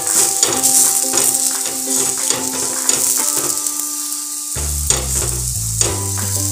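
Aloo paratha sizzling as it fries on a hot tawa, a steady hiss, with a steel ladle pressing and scraping it in short clicks. Background music with held notes plays over it, and a deep bass comes in about four and a half seconds in.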